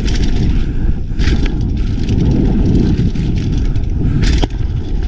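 Mountain bike rolling fast down a dirt trail: a steady rumble of tyres on the ground and wind buffeting the action camera's microphone, with two brief clatters from the bike, about a second in and again near the end.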